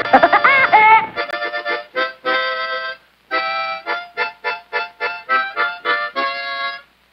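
Accordion music played as short, choppy chord stabs in a bouncy rhythm. During the first second a brief sound that wavers and slides in pitch plays over it.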